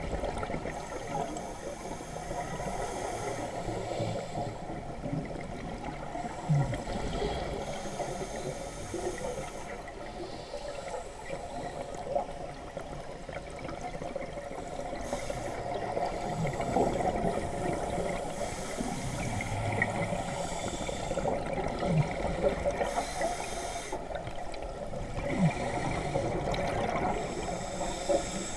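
Scuba regulator breathing heard underwater: a steady hiss with rushes of exhaled bubbles every few seconds, and a few soft knocks.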